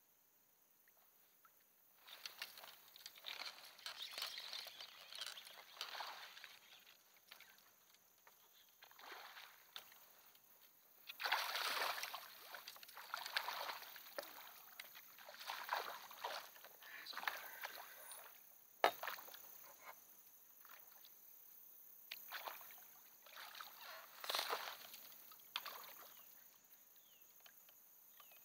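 Water sloshing and splashing in irregular bursts at the side of a fishing kayak as a landing net is worked in the water, with one sharp knock on the hull about two-thirds of the way through.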